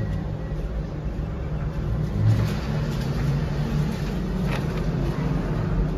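NCR cash machine's dispenser running as it counts out and presents banknotes: a steady mechanical whirr over a low rumble, with a faint click a little after four seconds in.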